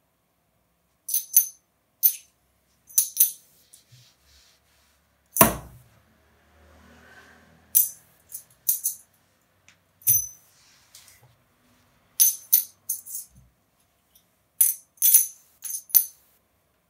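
Metal coins clinking against one another in short, bright, ringing clicks, in scattered groups of two to four, about fifteen in all. A single hard slap on the cloth-covered table comes about five seconds in, and a softer thump comes near ten seconds.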